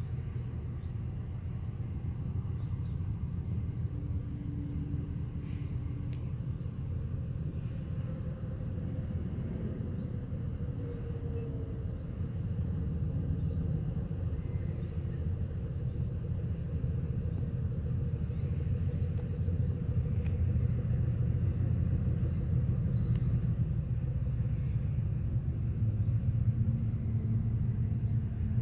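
Outdoor background noise: a steady low rumble that grows somewhat louder in the second half, with a constant thin high-pitched tone above it.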